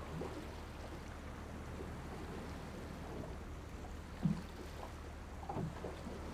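Shrimp boat's engine running with a steady low hum, with a few dull knocks about four seconds in and again a second or so later.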